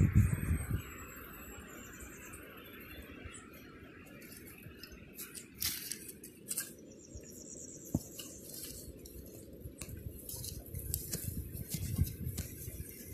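Dry grass and twig kindling catching fire, with a few sharp crackles and snaps near the middle. Low rumbling from handling or wind on the microphone at the start and again near the end.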